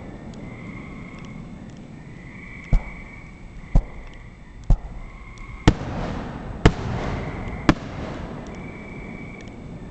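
Aerial fireworks bursting: six sharp bangs about a second apart, starting about three seconds in, each followed by a short rumbling echo. A steady high chirring runs underneath.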